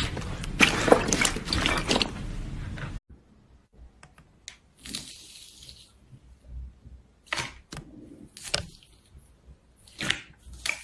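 Slime being squeezed and poked, making sticky clicks and crackles: dense for about the first three seconds, then a sudden drop to scattered single clicks and short crackles.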